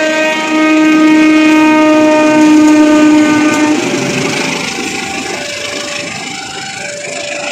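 Diesel-electric locomotive's air horn sounding one long blast that stops about three and a half seconds in. The train's wheels then roll over the rail joints, with a level-crossing warning tone repeating at intervals of about a second.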